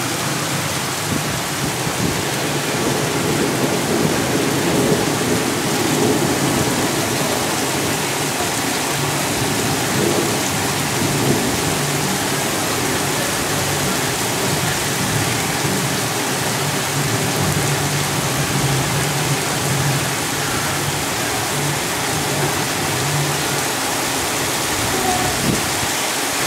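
Heavy rain pouring steadily in a thunderstorm, with a low, uneven rumble of thunder underneath for most of the time.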